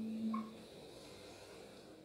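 Final chord of a nylon-string classical guitar ringing out and dying away about half a second in, with a brief squeak as it stops. Faint room tone follows.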